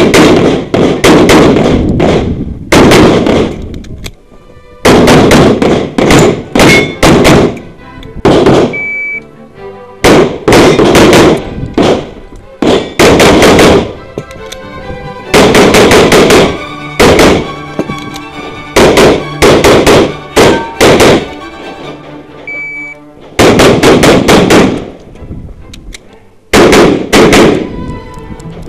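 Rapid pistol shots from an ADC Master Elite competition pistol, fired in quick pairs and strings with short pauses between clusters during a practical-shooting stage. Music plays underneath.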